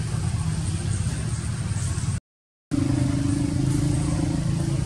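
Steady low hum of a running engine, broken by a half-second of dead silence about two seconds in. After the break a higher steady tone rides over it.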